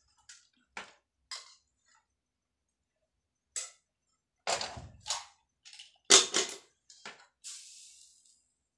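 Metal kitchenware clattering: a spoon tapping and scraping curry out of an aluminium pot onto a steel plate, and the pot being set down on a gas stove. It is a string of sharp clinks and knocks, the loudest a little after halfway through, ending with a short scrape.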